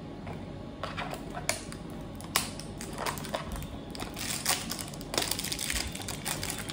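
Small paperboard product carton being opened by hand: scattered sharp crackles and clicks as the flap is pried up, turning to denser crackling and tearing in the last couple of seconds.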